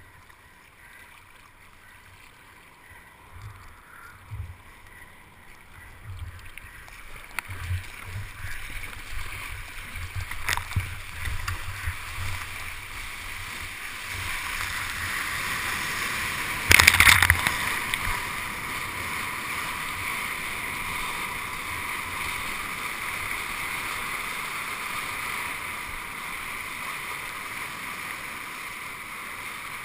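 Sea water splashing and rushing around a surf kayak, heard through a helmet-mounted GoPro HD camera's waterproof housing. Uneven thumps and slaps of water come first, then a loud splash about seventeen seconds in, then a steady rush of breaking whitewater as the kayak rides the wave.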